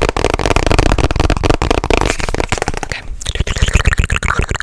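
Close-miked ASMR trigger sounds made by a person: fast, dense clicking and crackling, with a short lull about three seconds in.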